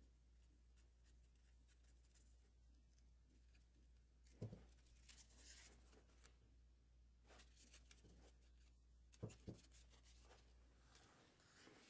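Faint rustling and crinkling of a paper covering being peeled by hand off a high-speed steel bar, with a soft knock about four seconds in and two more close together near the end, over a low steady hum that stops near the end.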